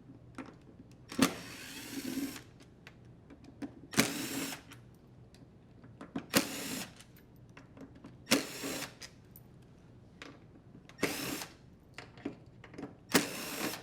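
Drill driver with a Phillips bit backing out screws from a dryer door's latch and hinge bracket, six short whirring bursts about two seconds apart, each starting with a click.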